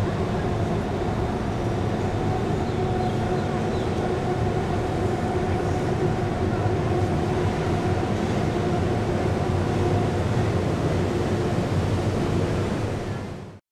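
BTS Skytrain electric train running along its elevated concrete viaduct: a steady rumble with a constant hum.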